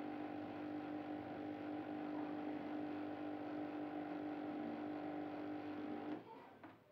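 A steady mechanical hum with one strong pitched tone, which cuts off abruptly about six seconds in.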